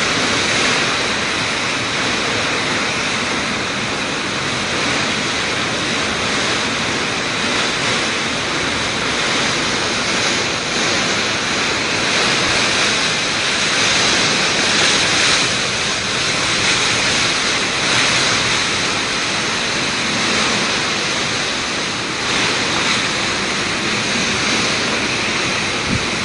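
Typhoon wind and heavy rain: a loud, steady rush of noise that swells a little with the gusts.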